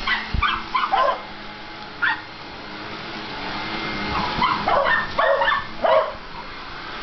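Dogs barking in short, sharp bursts: a cluster in the first second, one at about two seconds, and a run of them in the second half. Underneath runs the steady noise of a vacuum cleaner, growing louder.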